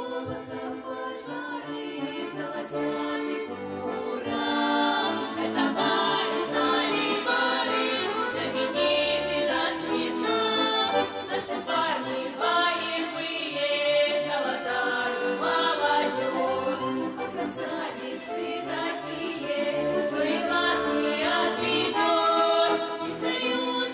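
Young folk ensemble singing a Russian folk song in chorus, with accordion accompaniment.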